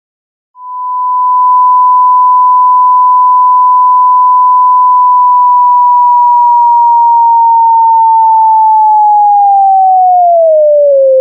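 Pure 1 kHz sine tone from a Max/MSP cycle~ oscillator fading in smoothly over about a second with no click, as a 1000 ms line~ ramp raises its volume. It holds steady, then from about halfway through slides gradually down in pitch to around 500 Hz as the frequency value is dragged lower.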